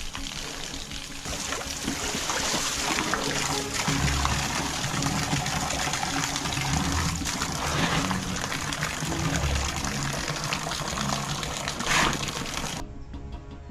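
Water splashing in a children's paddling pool as a bear moves about in it, with soft background music underneath and one brief louder burst near the end.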